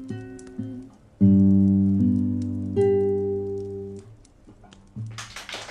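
Instrumental music closing on a loud final chord about a second in that rings and slowly fades, with one more note added over it; a burst of clapping breaks out near the end.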